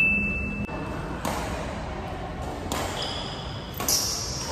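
Badminton being played on an indoor court: sharp racket hits on the shuttlecock, about one every second and a half, with short high squeaks between them.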